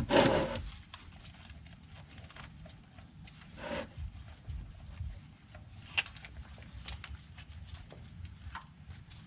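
Hands working at an oil filter under a vehicle: scattered light clicks and rubbing, with a short breathy noise at the start and another about three and a half seconds in.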